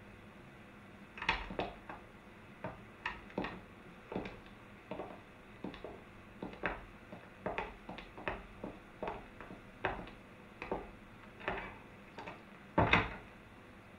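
Footsteps on a hard floor as several people walk out, irregular steps about two a second, with one louder, heavier thump near the end.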